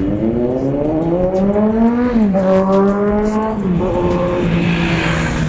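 Kawasaki Z900's inline-four engine through an SC Project aftermarket exhaust, accelerating hard. Its pitch rises for about two seconds, drops sharply at an upshift, holds level, then drops again and settles.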